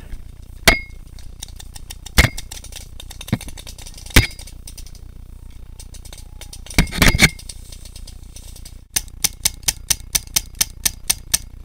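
Paintball markers firing: single sharp pops every second or two, a quick cluster about seven seconds in, then a rapid even string of about a dozen shots near the end, about five a second.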